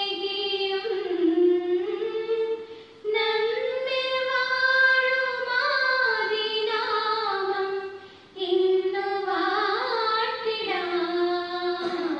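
A solo high voice singing a slow melody in long, gliding held notes, in three phrases broken by short pauses about three and eight seconds in.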